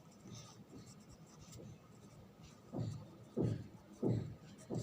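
Writing by hand: faint scratching, then four short, louder strokes about two-thirds of a second apart in the last two seconds.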